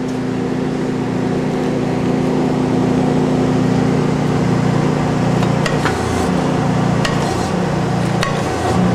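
Steady low mechanical hum of the powered-up Okuma LB9 CNC lathe standing idle, with a few light clicks in the second half.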